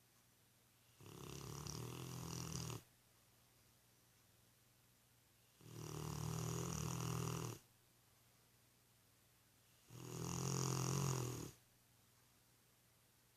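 Rottweiler snoring in its sleep: three long snores, each about two seconds, coming roughly every four to five seconds with quiet between them.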